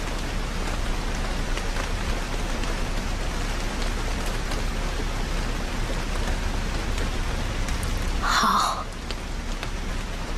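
Steady rain, an even hiss with scattered drop ticks. A brief, louder sound cuts through about eight seconds in.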